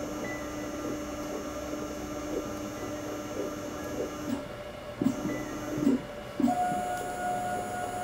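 Motorized force test stand driving a scalpel down into raw chicken breast: a steady machine whine that shifts pitch about two-thirds of the way in, with a few faint ticks as the blade presses into the meat.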